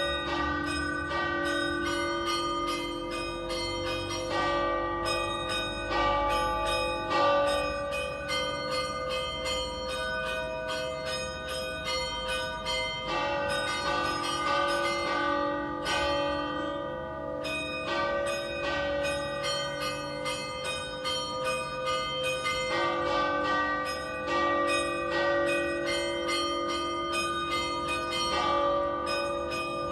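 The three bells of a civic bell tower, the largest a great bell cast in 1878 and tuned to D-flat, with two smaller bells cast in 2015, rung together in a festive peal. Their strikes follow close on one another and the ringing overlaps without a break.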